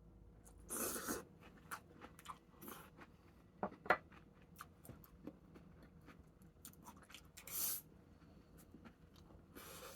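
Scattered light clicks and knocks with three short rustling bursts, from small objects being handled.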